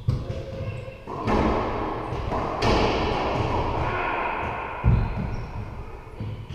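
A racquetball thuds hard once, about five seconds in, after a few seconds of loud rushing noise in the enclosed court.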